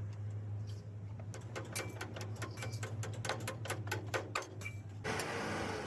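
Irregular light clicks and taps over a steady low hum, giving way to a hiss about five seconds in.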